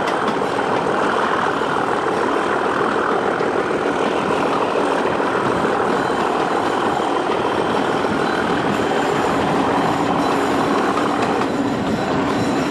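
Class 37 diesel locomotive's English Electric V12 engine working hard at the head of the train, mixed with the coaches' wheels running on the rails and wind rushing past an open coach window. The sound is loud and steady throughout.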